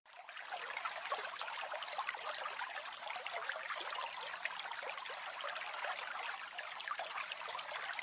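Water splashing and trickling: a steady hiss of many small droplets, with no low rumble.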